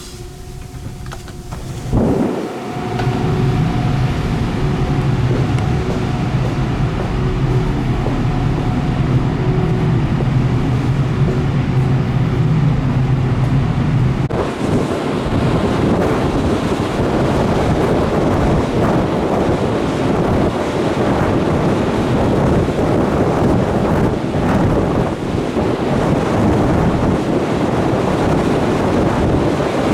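Wind buffeting the microphone on a ferry at sea, over a steady low drone from the ship with a faint pitched whine. About twelve seconds after the wind starts, the drone drops away and a dense rush of wind and sea carries on.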